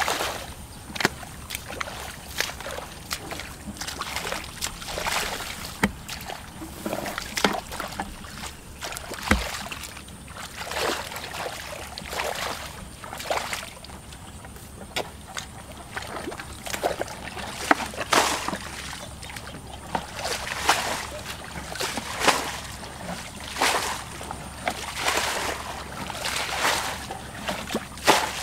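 Plastic bucket bailing muddy water out of a shallow ditch: repeated scoops and splashes of water thrown out, at an uneven pace of about one a second.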